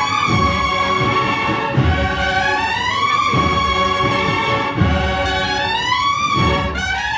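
Large marching band of over 100 players performing: brass carry a slow, sustained melody that slides up and down in pitch, over heavy drum strokes about every one and a half seconds.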